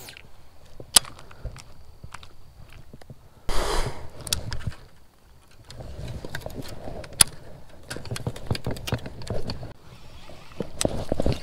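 Baitcasting rod and reel being handled while a topwater frog lure is reeled in and cast: reel clicks and winding with scattered sharp clicks. There is a short burst of rushing noise about three and a half seconds in, and a busier stretch of small ticks and rustle from about halfway on.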